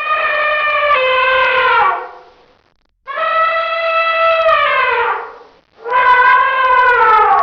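Elephant trumpeting: three long calls, each holding a steady pitch and then sliding down as it fades.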